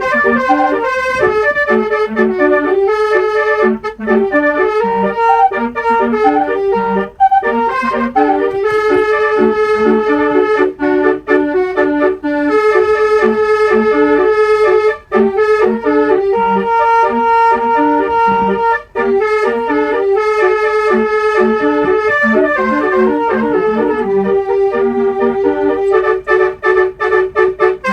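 Multi-tone 'basuri' telolet bus air horn playing a melody: a run of brassy, flute-like notes changing pitch note by note, with a few short breaks.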